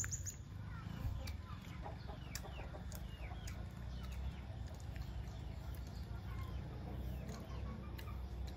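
Faint chicken calls: a run of short falling notes over a low steady background rumble.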